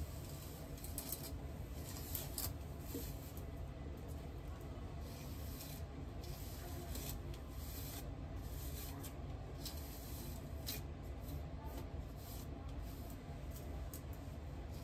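Hairbrush strokes through long hair: a series of soft, hissing brush strokes at irregular intervals.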